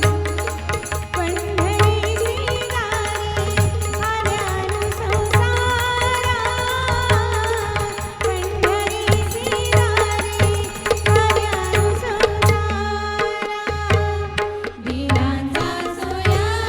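A woman singing a melody over tabla and pakhawaj, the drums keeping a steady rhythm of low strokes beneath held accompanying tones.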